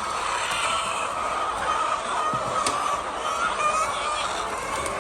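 A large flock of laying hens clucking and calling all at once, a steady, unbroken din of many overlapping voices.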